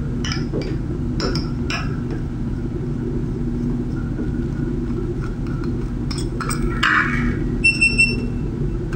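Small screwdriver working the screws out of a hot air rework wand's metal nozzle housing: light metal ticks, a short scrape, then three quick ringing metal clinks near the end. A steady low hum sits underneath.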